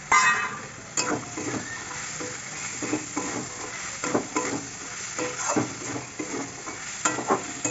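A metal spatula scrapes and knocks against a metal kadai in irregular strokes as fried vegetables and peanuts are stirred, over a steady sizzle of frying.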